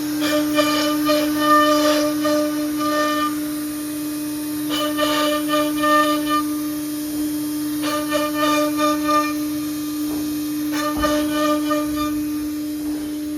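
CNC nesting router's spindle running with a steady high whine. Four times the cutter engages the board, adding a harsher fluttering cutting sound that lasts a second or two before easing off.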